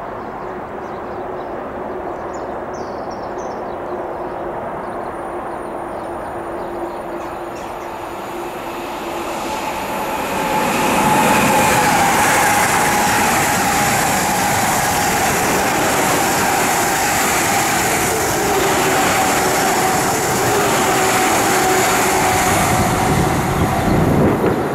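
Eurostar high-speed train approaching and passing at speed: a faint steady whine for about ten seconds, then a sudden rise to a loud, sustained rush of wheels and air with a high whine that slowly falls in pitch as the train goes by.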